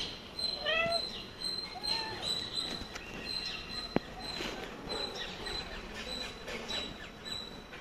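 Birds chirping in a broken high twitter, with a short arched mewing call about a second in and another at about two seconds, and one sharp tap at about four seconds.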